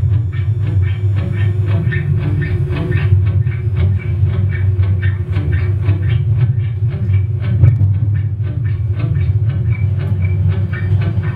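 Live noise music from guitars, synthesisers and electronics: a loud, steady low drone under a fast, even clicking pulse of about four clicks a second, close to the clatter of a train on rails.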